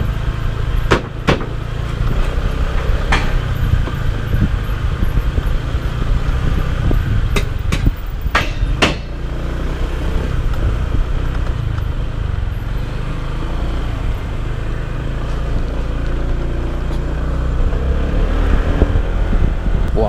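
Motorcycle riding along, its engine and the wind making a steady low rumble. In the first half there are sharp knocks, a few of them close together, as the wheels run over the plank deck of a Bailey bridge.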